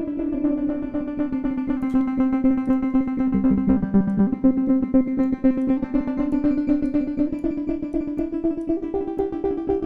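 Software modular synthesizer patch playing an ambient chord of short, plucky wavetable-oscillator notes, the notes repeating quickly in a pulsing rhythm, with a lower note sounding briefly about four seconds in.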